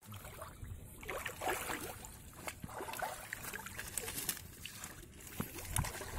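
Shallow water sloshing and trickling with small irregular splashes as hands pull clumps of water hyacinth through it.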